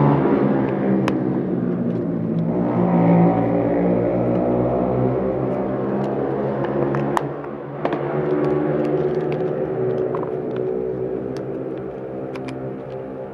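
A vehicle engine running with a steady rumble and a few faint clicks, its pitch shifting slightly now and then.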